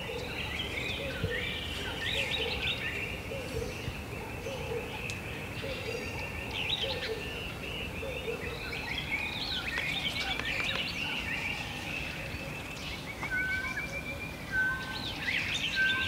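Dawn chorus of many wild birds chirping and singing over a steady high trill, with a low call repeated about once a second through the first half. Short clear notes repeat near the end.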